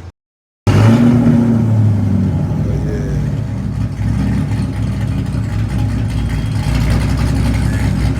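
Camaro 2SS with a Stage 2 camshaft, its 6.2-litre V8 running loud and steady through an aftermarket exhaust. It starts abruptly about half a second in, after a brief gap.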